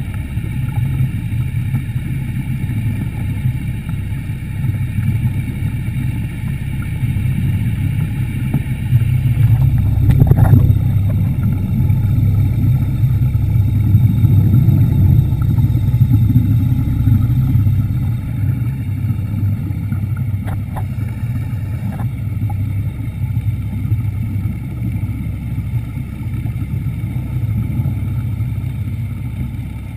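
Underwater scooter's motor running steadily underwater, a low hum with a faint high whine over it. It swells louder for several seconds from about a third of the way in, with a short knock at the start of the swell.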